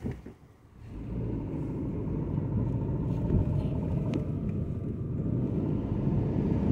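Car engine and road rumble heard from inside the cabin as the car gets moving: after a brief near-quiet moment, the low rumble starts about a second in and slowly grows louder.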